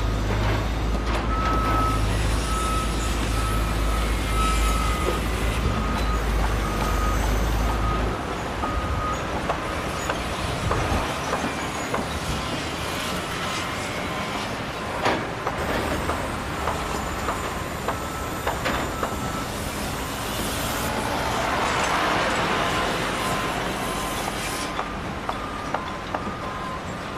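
Construction site noise: heavy machinery and trucks running, with a strong low hum for the first several seconds. Runs of short electronic beeps at one pitch, like a vehicle's reversing alarm, come early on and again near the end.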